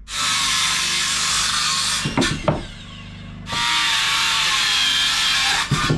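Cordless circular saw cutting through a wooden board in two passes of about two seconds each, with a couple of knocks of wood in the short gap between them.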